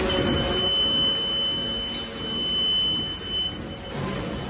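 High-speed center-seal bag-making machine running, with a steady high-pitched beep held for about three and a half seconds over the machine noise.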